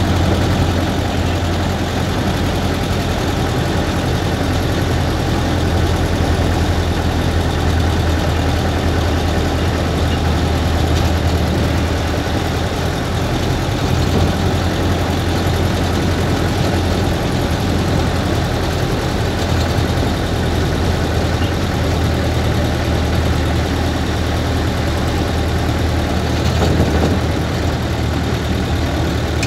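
1930 Ford Model A's four-cylinder flathead engine running steadily as the car drives along, with a strong low hum and an even level throughout.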